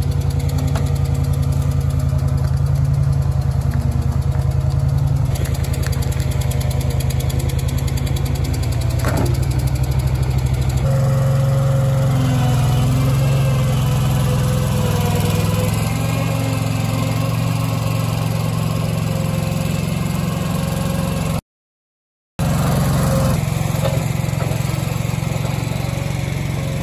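Toro Dingo compact tracked loader's engine running steadily while its bucket lifts a sewer cleanout's concrete-collared metal ring out of the ground. The engine note shifts about eleven seconds in as the machine works, and the sound cuts out completely for about a second near the end.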